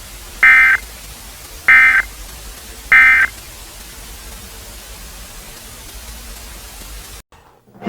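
Emergency Alert System end-of-message data tones: three short, buzzy bursts of digital warbling about a second and a quarter apart, over a steady static hiss that cuts off near the end.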